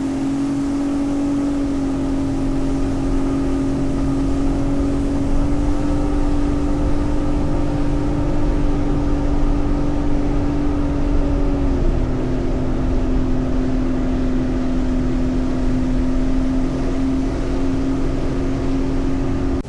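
Sea-Doo Explorer Pro 230 personal watercraft's supercharged Rotax 1630 ACE three-cylinder engine running at a steady speed, its note dropping slightly about twelve seconds in.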